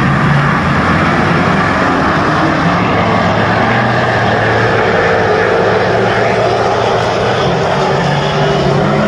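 Several dirt-track race cars' engines running hard at once, a loud continuous drone whose pitch wavers as the cars circle the track.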